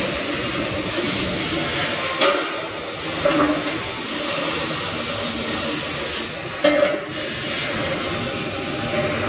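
Electric arc welding on a steel beam: a steady hissing crackle, with one sharp knock about two-thirds of the way through.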